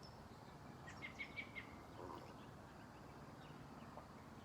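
Faint bird chirping, a quick run of short high notes about a second in, over a low steady background hum.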